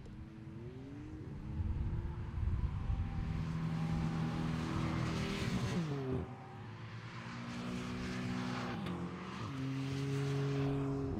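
Porsche sports car engines running under acceleration, the engine note rising shortly after the start and holding steady. It drops sharply about six seconds in and again around nine seconds, as the drivers lift off or change gear.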